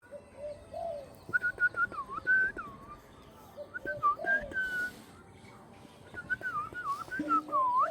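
Pet parrot whistling: three short phrases of clear whistled notes, several swooping down and back up in pitch.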